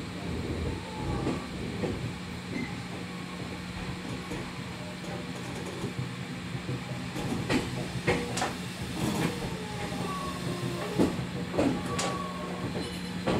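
Cabin running sound of a Fujikyu 6000 series (ex-JR East 205 series) electric train with MT61 traction motors: a steady motor and gear hum, with wheels clicking over rail joints, more often in the second half. Short falling whine tones come through as it runs.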